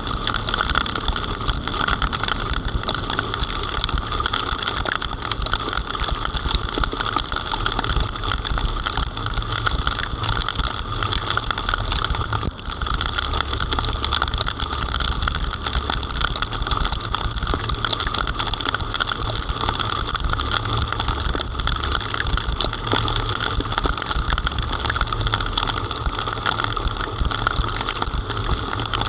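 A car driving on a wet road in heavy rain: a steady hiss of tyres and rain over a low rumble, unbroken throughout.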